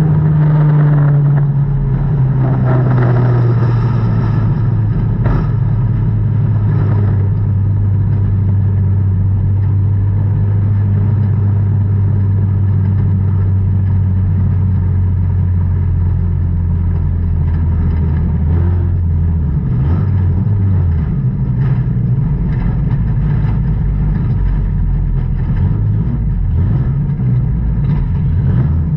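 Dirt-track race car engine heard from inside the cockpit: the revs drop over the first couple of seconds, then it runs steadily at low revs, turning uneven and unsteady after about 19 seconds.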